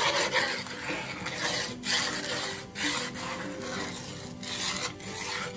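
Wooden spoon scraping and stirring dry sugar granules around a nonstick electric skillet as the sugar heats before melting, a gritty rasping in repeated strokes.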